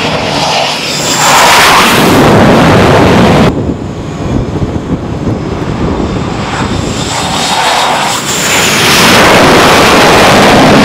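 F/A-18 Hornet jet engines coming in low on approach to an aircraft carrier flight deck, very loud, cut off abruptly about three and a half seconds in. A second jet's engine noise then builds from about seven seconds and stays loud.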